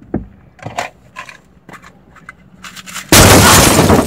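A few faint clicks and rustles, then, about three seconds in, a sudden, very loud burst of harsh noise that lasts about a second and cuts off sharply.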